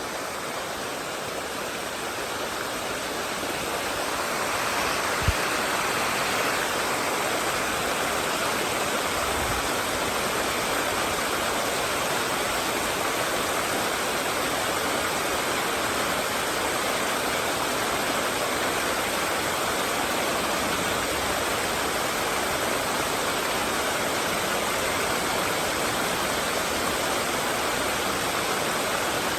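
Mountain stream water rushing steadily, a little louder from about four seconds in, with one faint click about five seconds in.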